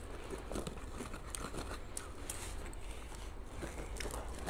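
Paper popcorn bag crinkling and rustling as a hand rummages inside it, a steady scatter of small crackles.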